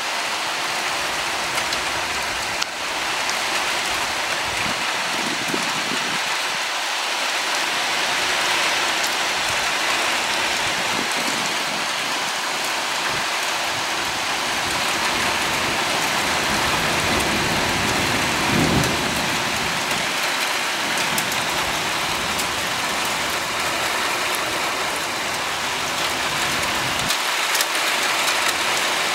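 Heavy rain pouring steadily onto the street and surfaces during a thunderstorm. Low rumbles of thunder swell under it a few seconds in and again, more strongly, around two-thirds of the way through.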